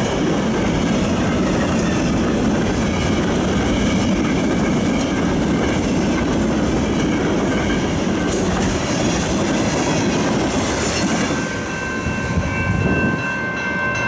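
Freight train cars, gondolas and tank cars, rolling past at the level crossing with a steady rumble and wheel clatter. Near the end the last car clears and the crossing signal's bell rings clearly as a steady high tone.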